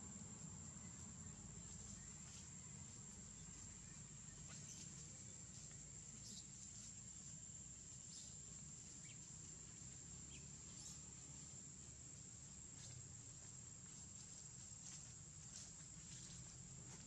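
Faint, steady high-pitched insect trill in leafy woodland, with a few scattered short chirps over a low, quiet background rumble.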